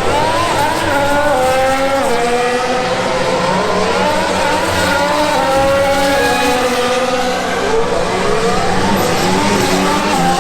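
Formula 1 cars' turbocharged V6 hybrid engines accelerating hard from practice starts. Each engine's pitch climbs and drops back at every upshift, and several cars overlap.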